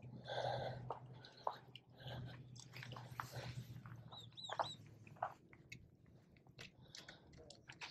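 Faint, irregular small clicks and gravel crunches from an angler cranking a spinning reel and shifting on a stony shore, with two short high chirps about four seconds in.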